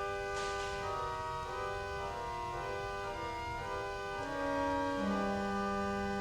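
Organ music: sustained chords held throughout, with shorter notes shifting above them in the middle, and deeper bass notes coming in about five seconds in.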